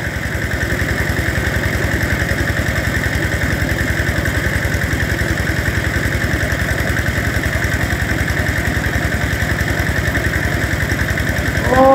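Small engine driving a water pump that is draining a fish pond, running steadily with a fast, even chugging beat.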